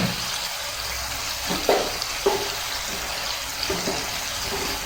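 Lamb sizzling as it stir-fries in hot oil in a karahi, a steady hiss, with a few short knocks about two seconds in.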